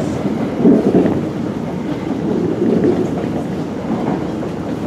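Steady rushing rumble of an Osaka Municipal Subway 20 series train running, heard from inside the car, with another train passing close alongside.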